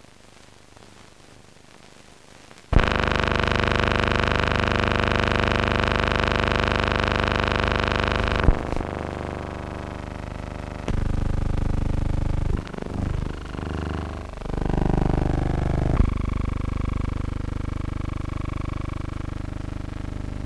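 Faint hiss, then a loud, harsh, steady buzz with many overtones that cuts in suddenly about three seconds in. It shifts in tone a few times, wavers for a few seconds in the middle, and then steadies again. This is noise on an old film soundtrack.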